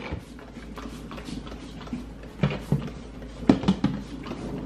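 Scattered light knocks and handling noises, grouped about two and a half and three and a half seconds in, over a low steady hum.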